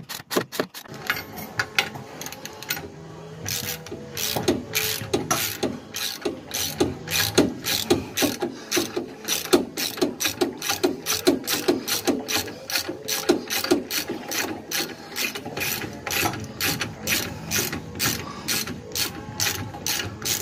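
Hand socket ratchet clicking steadily, about three clicks a second, as a nut on a rear leaf spring mount under a car is tightened.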